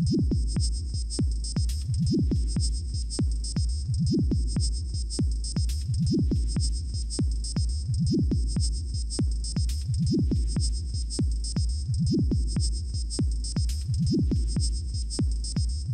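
Electronic music with a steady beat of about three clicks a second over a deep bass pulse that swells every two seconds.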